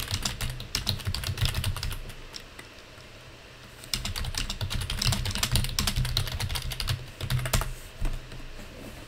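Typing on a computer keyboard: rapid keystrokes in two runs, the first about two seconds long, then a pause of about a second and a half, then a second run of about four seconds that stops shortly before the end.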